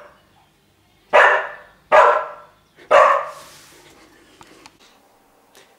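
Small shaggy white dog barking three times, about a second apart, followed by a few faint clicks.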